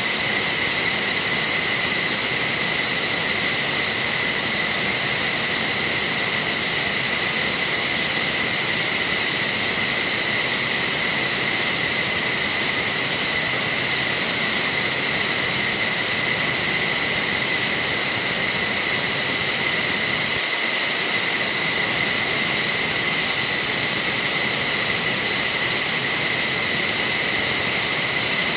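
F-15SG fighter jet running on the ground during its start-up sequence: a steady high whine over a loud, even rush of jet noise.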